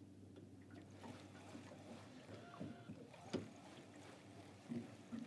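Faint sounds of a small boat sitting on the water: a low steady hum with a few small knocks, and one sharp click about three and a half seconds in.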